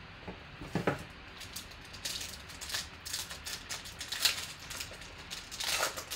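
Foil wrapper of a 2018 Panini Optic Contenders football card pack crinkling and tearing open in the hands, a run of irregular sharp crackles, after a knock about a second in as the box is handled.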